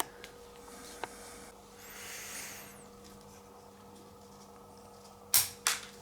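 Soft hand-working noises while potting a bonsai: a brief soft brushing hiss about two seconds in, then two short, sharp scrapes in quick succession near the end, over a faint steady hum.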